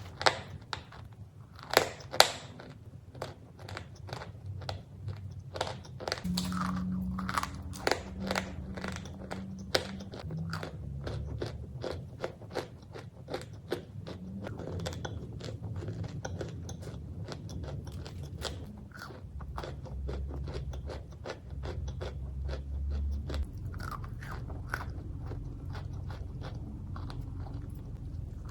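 Close-up biting and chewing of crunchy cookies: a run of irregular sharp crunches, the loudest about two seconds in.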